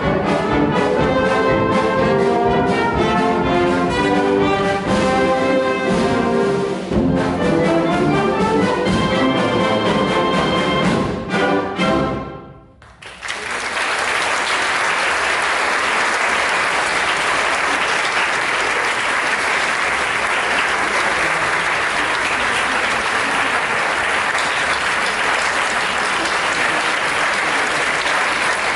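A wind band with brass and percussion plays its closing bars, which end about twelve seconds in. After a brief pause, an audience applauds steadily.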